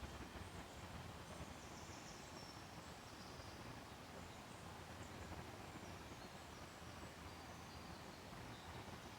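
Faint, steady background noise with a few faint, high-pitched chirps.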